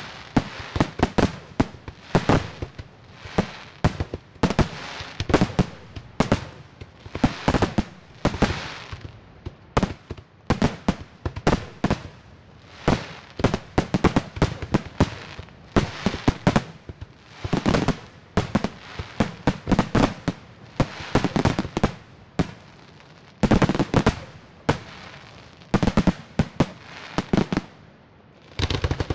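Aerial firework shells bursting in quick, irregular succession, with sharp bangs following one another closely. The barrage eases off briefly near the end.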